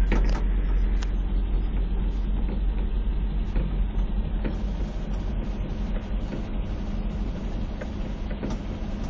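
Truck engine idling steadily, a low rumble with a steady hum, with scattered faint clicks over it.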